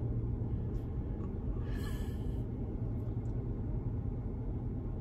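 Steady low rumble in a parked car's cabin, with a short breathy exhale, like a stifled laugh, about two seconds in.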